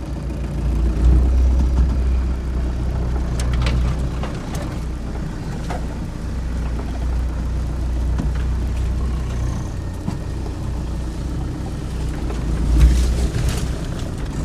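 Vehicle engine running steadily with a low hum, with a few sharp clicks or knocks about three and a half seconds in and again near the end.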